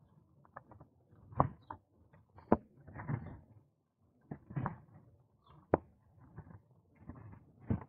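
Bicycle rattling and knocking irregularly as it rolls over the road surface, picked up by a camera mounted on the bike, with a few sharp knocks and rumbling gusts of wind on the microphone in between.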